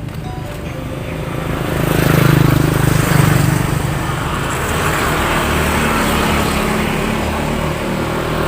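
A motor vehicle's engine running close by, swelling up about two seconds in and staying loud.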